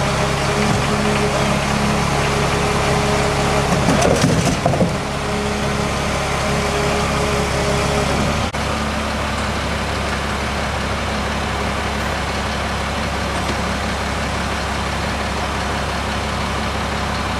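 Crane truck's engine running steadily while the boom lifts a roof truss, with a louder surge about four seconds in. A click comes about eight and a half seconds in, after which a steadier low hum remains.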